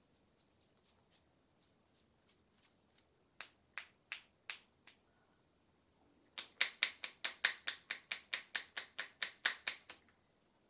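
Percussive hand-massage strokes with the palms pressed together, making crisp clapping clicks. A few scattered strikes come first, then a quick, louder run of about fourteen at roughly four a second.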